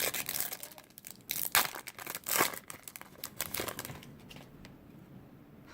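Baseball card pack wrapper being torn open and crinkled: a run of sharp crackling bursts over the first four seconds, loudest about one and a half and two and a half seconds in, then quiet handling.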